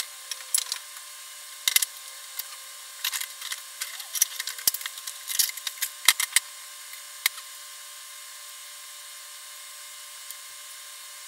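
Wooden boards knocking and clacking against each other and the clamp bars as they are laid and pushed into place: a string of sharp, irregular clicks that stops a little after seven seconds, leaving only a steady hiss.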